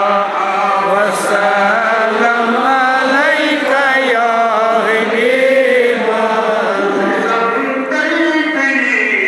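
Darood, salutations on the Prophet, chanted by men's voices in a slow, melodic recitation, with long held notes that glide up and down.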